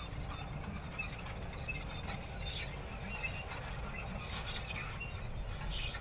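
Manure spreader running: a steady low rumble with irregular mechanical squeaks and clicks over it.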